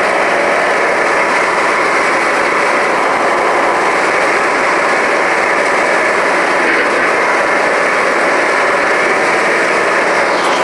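John Deere 6600 combine running steadily, a constant, unchanging machine drone.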